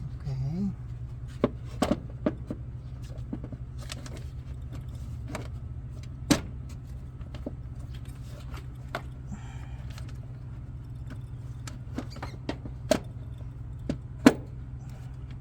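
A 1994 Honda Accord's air filter housing being closed up around a new filter: a series of sharp clicks and knocks, some louder than others, over a steady low hum.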